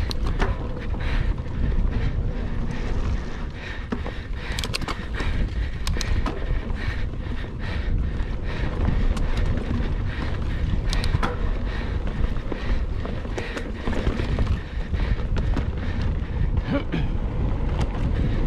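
Wind rumbling on the microphone of a mountain bike riding along a trail, with scattered sharp clicks and rattles from the bike over rough ground.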